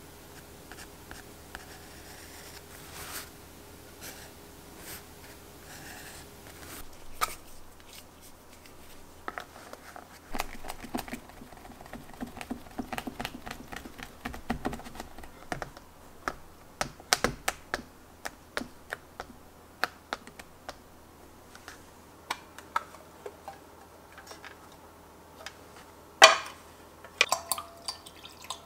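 Pencil scratching softly on sketchbook paper, then a run of light clicks, taps and paper handling as the sketchbook and art supplies are moved about. Near the end a sharp clink, the loudest sound, as a paintbrush knocks against a glass of water.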